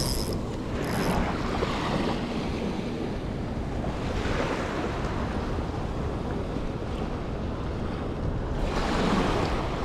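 Small waves washing in the surf, with wind buffeting the microphone; the wash swells up about a second in, again around four seconds and near the end.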